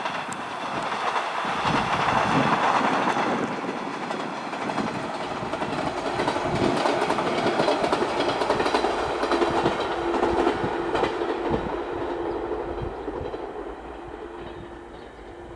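JR 115-series electric train running past, its wheels clicking over the rail joints. The sound swells twice and fades away near the end, with a steady hum underneath.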